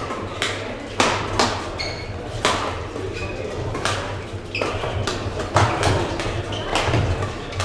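Badminton rackets striking a shuttlecock in a fast rally, a string of sharp irregular hits that echo in a large sports hall, with short squeaks of court shoes on the floor between them.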